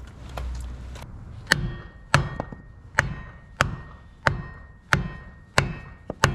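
Hammer blows on a wooden block held against a bronze propeller hub, driving the propeller onto the shaft taper: about eight sharp strikes, roughly one every 0.6 s, starting about a second and a half in, several followed by a short metallic ring.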